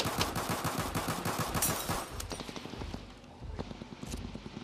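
Intense rapid gunfire from several guns, overlapping shots in a dense volley that thins to scattered, quieter shots after about two seconds.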